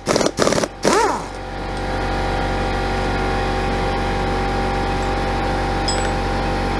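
A steady mechanical hum with several held tones, unchanging throughout, following a brief voice-like sound in the first second.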